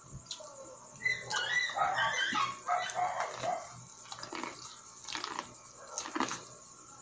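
A dog barks and yelps in a quick run of calls for about three seconds, starting about a second in. After that come two short sharp sounds, bites into a cob of sweet corn.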